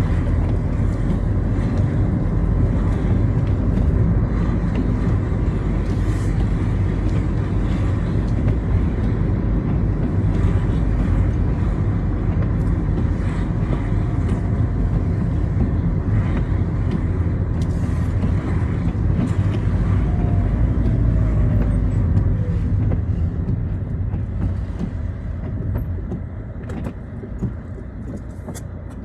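Citroën Xsara driving on a wet road in the rain: steady engine and road rumble with tyre noise, quietening over the last few seconds.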